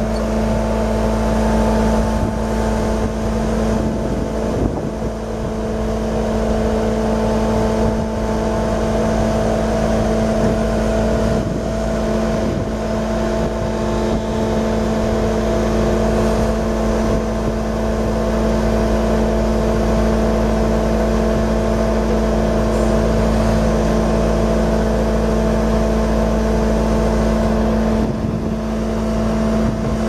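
The Kubota V3307 3.3-litre four-cylinder turbo diesel of a 2012 Bobcat S750 skid steer running at a steady speed, with a constant drone.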